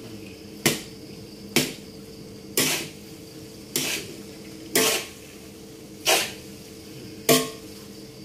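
Steel spatula striking and scraping a large metal wok while fried rice is turned over, seven strokes about a second apart, each leaving a short metallic ring from the pan, over a faint steady hiss.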